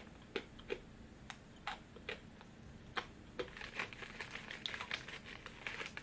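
Crunching of a thin Pretz fried-chicken-flavoured biscuit stick being chewed, scattered crisp clicks, then the crinkle of a foil snack packet as fingers rummage in it from about three and a half seconds in.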